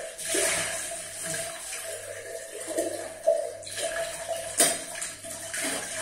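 Water running steadily from a tap into a kitchen sink, with two sharp knocks about three and four and a half seconds in.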